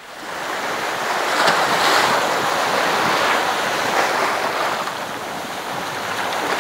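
Sea surf: waves washing in as a rushing hiss that fades in at the start and swells and eases every two to three seconds.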